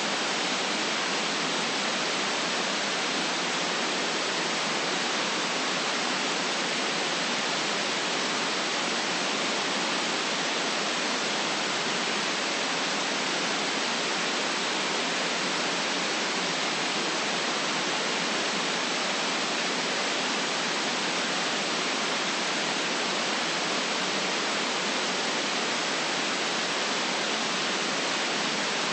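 Steady white noise for sleep: an even, unchanging hiss with almost no bass.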